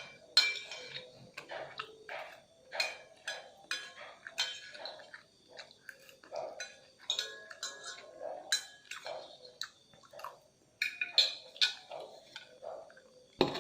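Cutlery clinking and scraping against a dish while instant fried noodles are eaten, in irregular sharp clicks with chewing between them.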